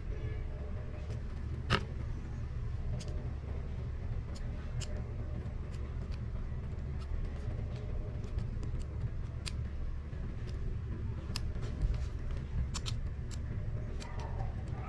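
A steady low rumble with many small, sharp clicks scattered irregularly through it.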